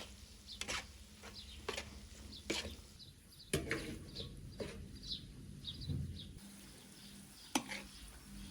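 Scattered light knocks and clicks, about seven of them spread unevenly, with a run of short, high bird chirps in the middle.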